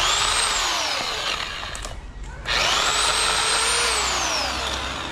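Portland electric pole saw's motor and chain run in two bursts about two seconds apart. Each is a high whine that falls in pitch as the motor winds down.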